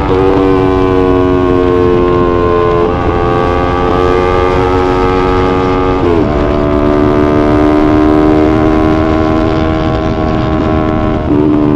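Yamaha YZF-R3's parallel-twin engine running at steady riding revs, with wind rushing on the microphone. The engine note drops in pitch near the start and again about six seconds in.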